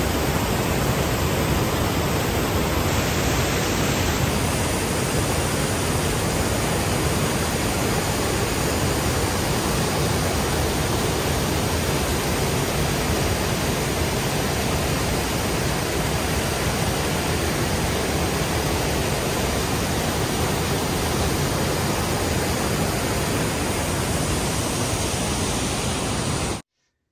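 Mountain stream rushing steadily over boulders, a dense even wash of white-water noise that cuts off suddenly near the end.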